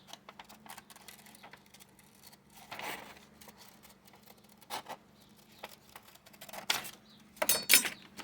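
Paper being cut by hand: scattered quiet snips and rustles, with a few louder clicks close together near the end.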